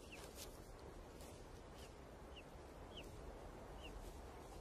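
Golden eagle chicks' faint begging cheeps: about six short, high calls, each dropping in pitch, repeated every half second to a second over a steady hiss.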